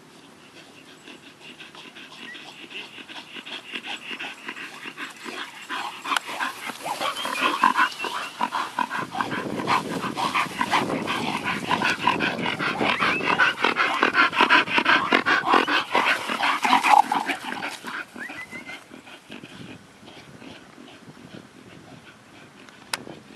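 Two bull terriers vocalising as they play-fight, a dense run of rapid dog sounds. It builds over the first several seconds, is loudest through the middle, and dies down a few seconds before the end.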